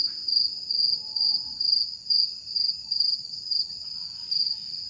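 Crickets chirping at night: a steady high-pitched song that pulses about two to three times a second without a break.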